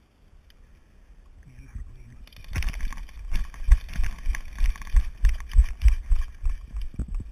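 Running footsteps on a dirt path, starting about two and a half seconds in: heavy thumps about three a second, with gear rattling and brush rustling.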